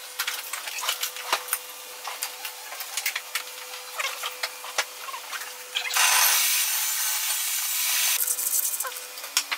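A wooden board scraping and knocking as it is slid into place on a table saw's table. About six seconds in, the table saw cuts through the board with a loud hiss for about two seconds, then eases off.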